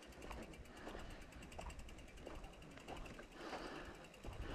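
Mountain bike's rear freehub ticking faintly as the rear wheel freewheels, a run of small ratchet clicks.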